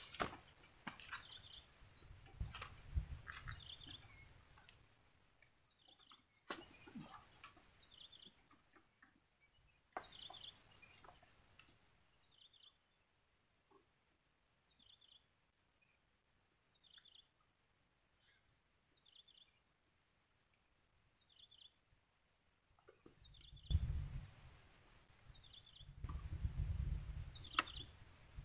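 Faint outdoor ambience: a bird repeating a short chirp about once a second, with a few higher whistled notes, over a steady thin insect whine. Bursts of low rumble come in about two seconds in and again near the end.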